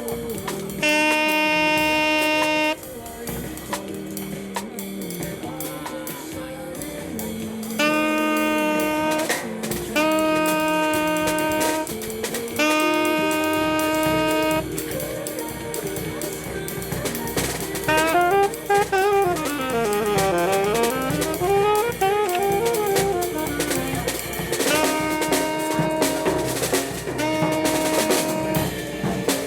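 Saxophone playing a string of long held notes, with a fast run that sweeps down and back up about two-thirds of the way through, over a drum kit in the background during a band sound check.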